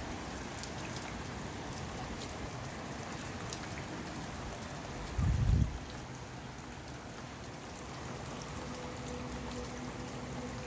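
Steady rain falling, with scattered drops tapping. About halfway through, a brief low thump of wind buffeting the microphone is the loudest sound, and a faint steady hum joins near the end.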